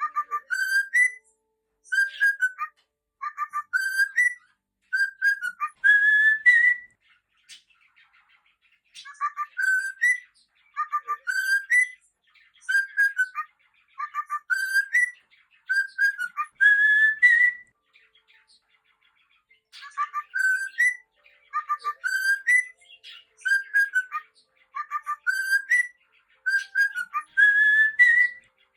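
Cockatiel whistling its song: a phrase of short warbling notes, each rising in pitch, that closes with a longer upward-sliding whistle. The phrase comes three times, with pauses of about two seconds between.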